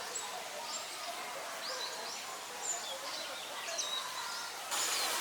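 Small birds chirping, a scatter of short calls that sweep up and down, over a steady background hiss that grows louder near the end.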